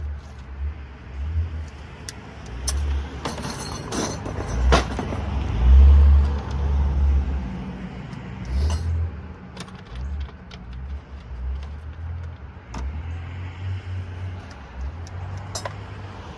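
Small metal parts of light sockets clicking and clinking while they are taken apart by hand, with sharp scattered clicks, over a low rumble that swells and fades and is loudest about halfway through.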